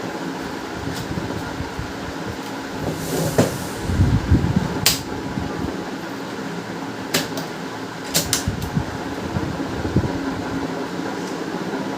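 Steady fan hum, with a few sharp clicks and knocks and a brief low rumble about four seconds in, from plastic printer parts being handled and fitted.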